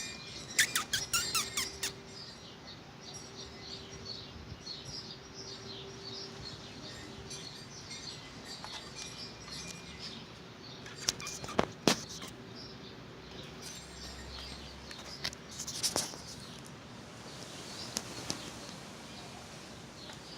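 Clusters of sharp clicks and knocks from kittens playing, about half a second to two seconds in, again around eleven to twelve seconds and near sixteen seconds, with faint high bird chirping throughout.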